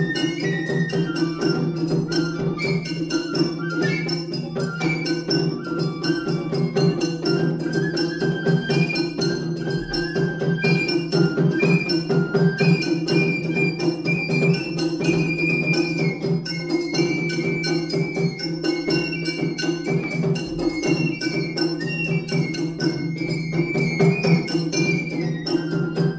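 Funabashi-ryū matsuri bayashi (Japanese festival music): a shinobue bamboo flute plays a melody over fast, steady shime-daiko drum strokes and a larger drum.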